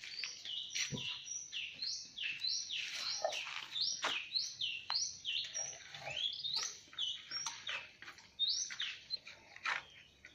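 Small birds chirping busily, many short high notes that drop in pitch, several a second and overlapping, with a few sharp clicks among them.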